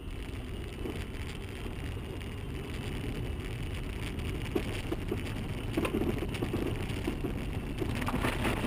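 A car driving, its engine and tyres giving a steady low rumble, with a few faint knocks in the middle.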